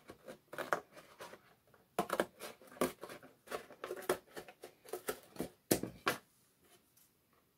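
Scissors cutting out a paper template: a run of quick, irregular snips that stops about six seconds in.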